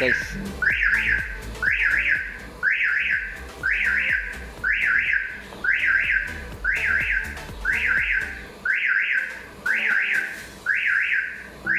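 Aftermarket car alarm siren sounding: a repeating double rising chirp, about once a second, signalling that the armed alarm has been triggered.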